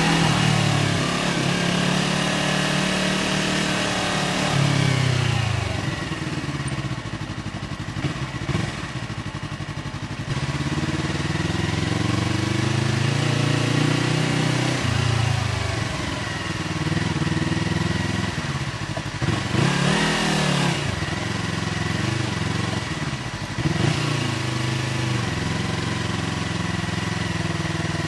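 Yamaha R3's parallel-twin engine through an SC-Project aftermarket exhaust, under way. Its pitch climbs and drops again and again as it pulls through the gears and eases off, with a few sharp blips near the end.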